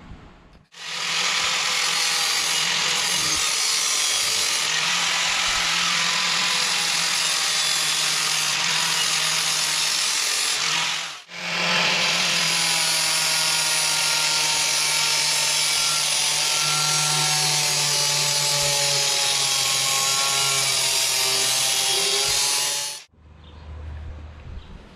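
Handheld electric angle grinder running with its disc pressed against the inside of a metal mower deck, a steady whine over grinding noise. It runs in two long stretches with a short break just past the middle and cuts off sharply near the end.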